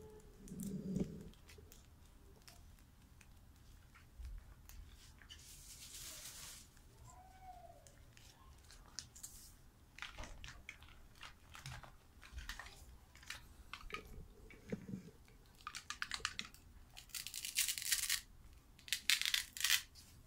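Clear plastic packaging bag crinkling and rustling in bursts as it is handled, with small clicks of hard plastic toy food pieces. The crinkling is loudest near the end.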